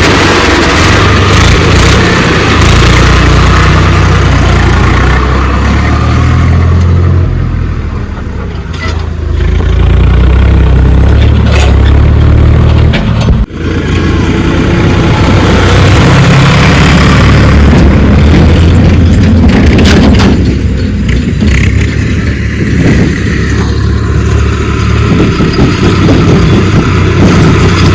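Diesel engine of a JCB backhoe loader working while loading soil, running loud with its load and speed rising and easing, with a sudden brief break about halfway through.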